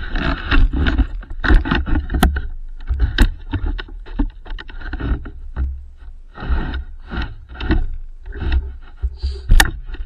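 Dog sled gliding over a snow trail behind a running dog team: the runners hiss and scrape in uneven swells, with a few sharp knocks from the sled.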